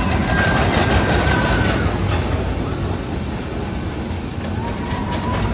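Steady rumble and noise of a busy amusement park, with a faint high whine for about the first two seconds and a lower one near the end.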